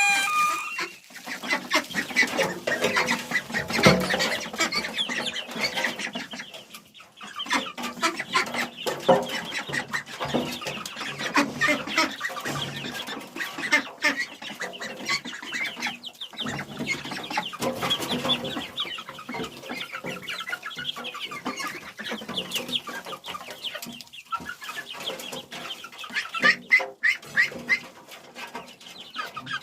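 A flock of domestic fowl feeding on grass, giving many short calls that overlap continuously.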